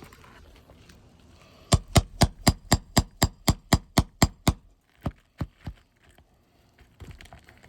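Roofing hammer striking a nail puller to drive it under a roofing nail in an asphalt shingle: about a dozen quick sharp strikes, about four a second, then three lighter taps.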